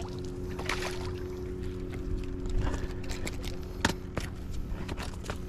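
A steady low motor hum with a few sharp clicks and knocks: one about a second in, and two close together near four seconds in.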